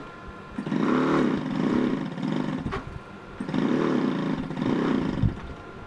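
A DLE35R two-stroke gas engine being cranked by a starter in two bursts of about two seconds each, the whine rising and sagging in a repeating pulse, and a third burst starting near the end. It turns over but does not fire: a no-start.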